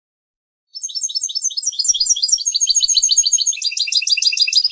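European goldfinch singing a rapid twittering phrase of high notes, starting about a second in and switching to a faster run of notes about three and a half seconds in.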